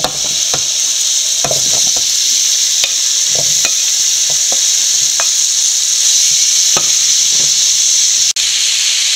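Marinated breadfruit and chicken pieces sizzling as they land in a hot pan of oil and sautéed onions, with a steady frying hiss. A wooden spatula clacks and scrapes now and then against the bowl and pan. The sound breaks off for an instant near the end.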